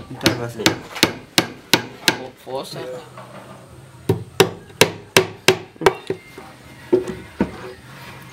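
Hammer driving small one-inch nails into the wood of a beehive box, sharp taps about three a second. The taps pause for about two seconds partway through, then start again.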